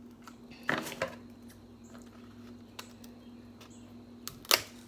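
Clatter of dishes and utensils while eating a seafood boil: a short cluster of clinks about a second in and a louder sharp knock near the end, with faint ticks between.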